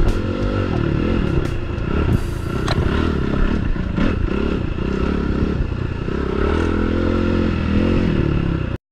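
Suzuki RMX450's single-cylinder four-stroke engine heard on board while riding, its pitch rising and falling with the throttle, with scattered clicks and knocks. The sound cuts off suddenly near the end.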